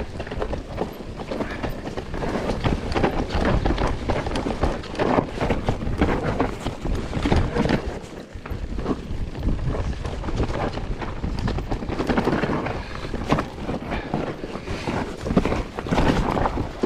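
Mountain bike riding downhill on a rough trail: wind buffeting the microphone over the running noise of the tyres, with frequent short knocks and rattles as the bike goes over bumps.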